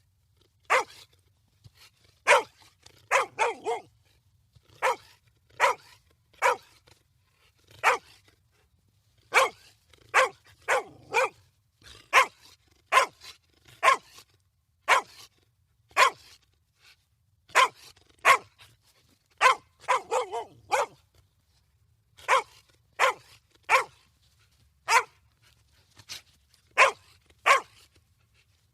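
Dog barking in short, sharp single barks spaced about a second apart, now and then in quick runs of two or three.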